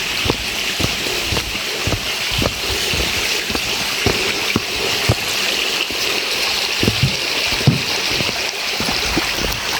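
Stream rushing and splashing over rocks in a steady hiss, with footsteps thudding about twice a second.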